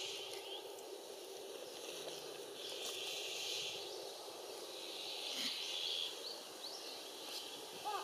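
Outdoor woodland ambience: a steady background murmur with faint small-bird chirps and calls now and then, strongest about three and five seconds in.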